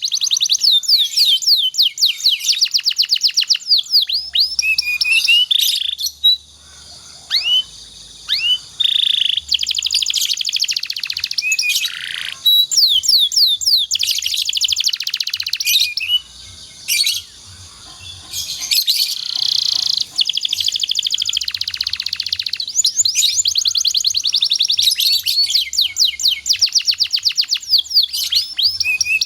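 Domestic canary singing loud, high-pitched song: fast rolling trills of rapidly repeated notes and chirping phrases, with brief pauses about six seconds in and again around seventeen seconds.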